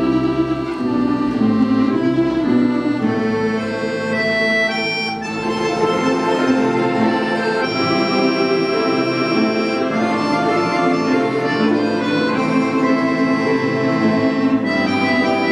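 An orchestra of Russian folk instruments playing, with held accordion (bayan) chords standing out.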